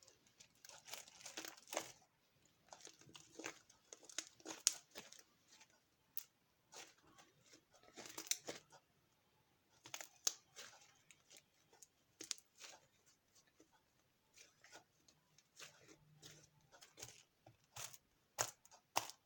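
Freshly made fluffy slime being squished, stretched and pulled apart in the hands, giving irregular sticky crackles, clicks and short tearing sounds with quiet gaps between them.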